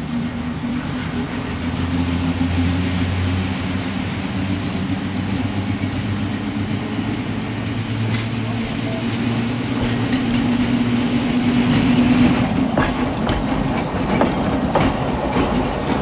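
Electric trolley car TMER&L 846 running on the rails, with a steady low hum throughout. Wheels click over rail joints in the last few seconds.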